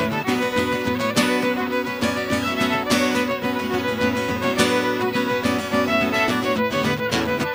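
Fiddle playing a lively Irish jig tune in a run of quick notes.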